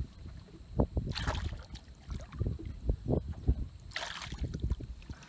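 Water splashing twice, about a second in and again near four seconds, among scattered low knocks and bumps in a fishing boat, as a freshly hooked bass is brought to the boat.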